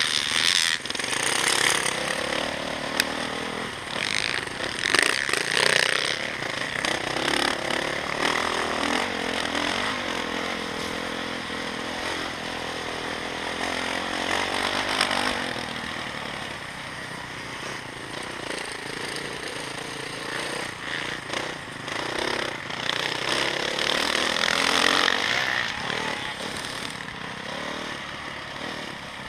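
Motocross dirt bike engine running hard under the rider, its pitch rising and falling with the throttle, over a steady rush of wind noise; it swells loudest about five seconds in and again around twenty-five seconds.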